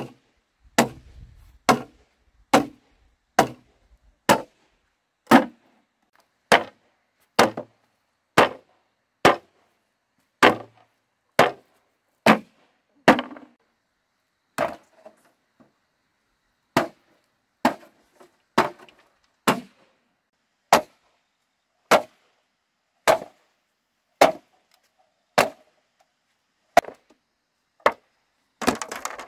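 Steady, evenly paced tool blows on bamboo, about one sharp strike a second, slowing slightly in the second half. A short, rougher burst of sound comes near the end.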